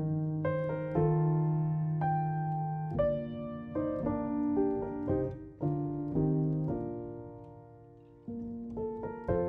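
Background music: soft solo piano, notes and chords struck every second or so and left to ring and fade.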